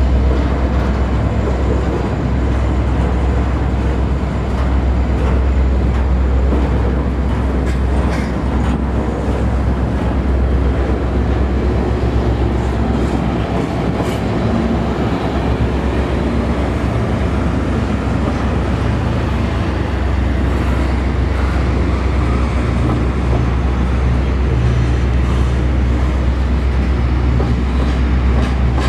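Double-stack container freight train passing, led by an EMD SD70 diesel locomotive. The locomotive's diesel runs as it goes by, then the loaded well cars roll past with a steady low rumble and the clack of wheels over the rail joints.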